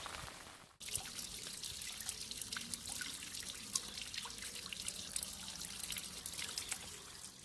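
Rain falling, with many separate drops dripping and tapping close to the microphone over a steady hiss. The sound cuts out briefly a moment in, then carries on the same.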